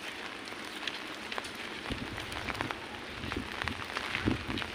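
Heavy rain falling on a fabric umbrella overhead: a steady hiss with many sharp drop ticks. A low rumble joins about two seconds in.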